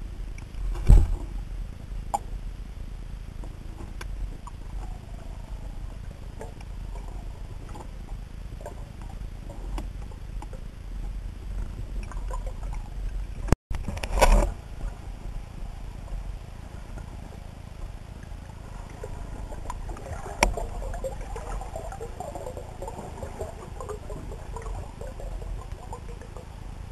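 Underwater sound picked up through a camera's waterproof housing: a steady low rumble of moving water, with a few sharp knocks against the housing, the loudest about a second in, another just after the middle and one about two-thirds through. The sound briefly cuts out just before the middle.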